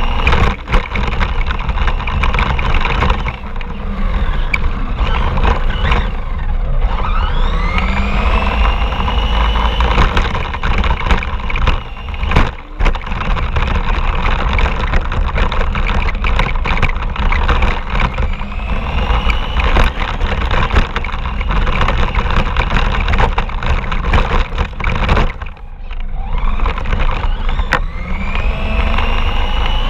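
Radio-controlled car driving, heard from a camera mounted on it: steady rough rattle of the wheels and chassis over the ground, with the motor's whine rising in pitch as the car speeds up, three times.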